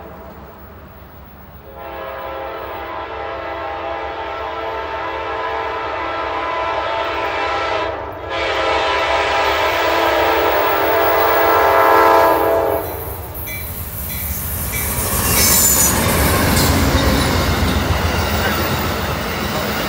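Amtrak passenger train's locomotive horn sounding two long blasts as it approaches: one of about six seconds, a short gap, then one of about five seconds that ends some 13 seconds in. The locomotive and passenger cars then roll past, their wheels clattering over the rail.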